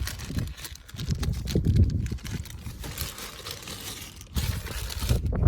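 Hands fitting a new air filter into the plastic air box: irregular rustling and knocks of plastic and filter being handled.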